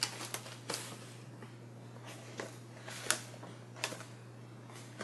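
Perfume boxes and bottles being handled: a handful of light, irregular taps and clicks, the sharpest about three seconds in, over a faint steady low hum.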